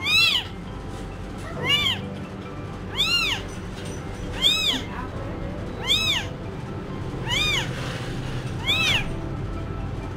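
Newborn kitten crying repeatedly: seven high calls that each rise and fall in pitch, about one every one and a half seconds.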